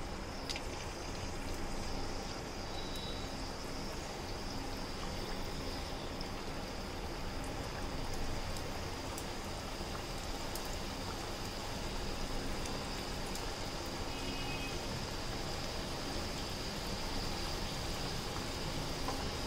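Samosas deep-frying in hot oil in a kadai: a steady sizzle and bubbling with small scattered crackles.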